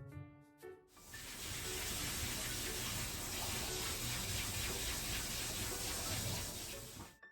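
Water running steadily from a kitchen tap into a sink. It starts about a second in and cuts off abruptly near the end, with light piano music before it.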